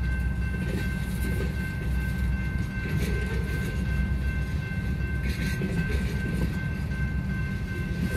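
Freight train of boxcars rolling past a grade crossing: a steady low rumble of wheels on rail, with a thin steady high-pitched ring throughout and a few sharp clacks about three and five seconds in.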